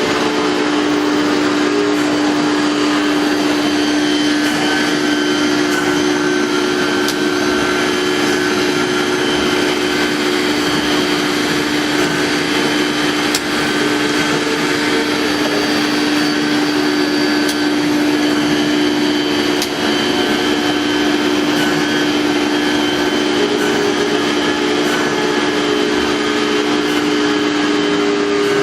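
CNC router running steadily: a constant hum over a loud, even rushing noise, with a few faint clicks.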